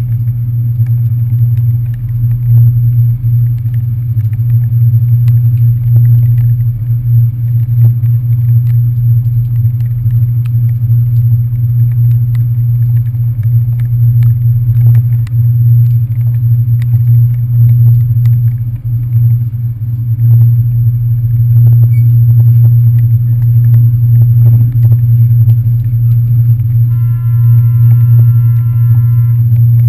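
Ferry engines running: a steady, loud low drone, with faint light ticks from rain on the camera housing and a brief high tone near the end.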